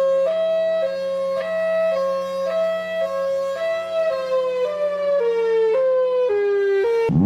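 Two-tone hi-lo tornado warning siren, switching between a higher and a lower tone about every half second; from about four seconds in both tones slowly sag lower. Near the end it cuts off suddenly and another siren starts winding up in a rising wail.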